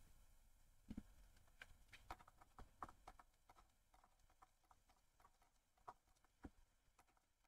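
Faint, irregular tapping and clicking of a stylus writing on a tablet screen, with a duller knock about a second in and another late on.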